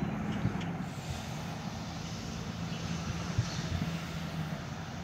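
Steady low hum of a motor vehicle engine running, under outdoor background noise.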